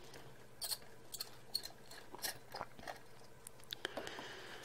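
Faint, irregular clicks and scrapes of a precision screwdriver turning out a small screw from the metal back plate of a Canon G11 compact camera.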